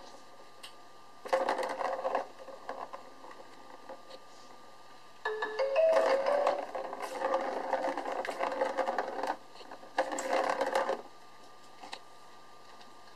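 Plastic ball rolling around the plastic track of a cat scratcher toy as a kitten bats it, a rumbling rattle that runs three times: briefly about a second in, for about four seconds in the middle, and briefly near the end.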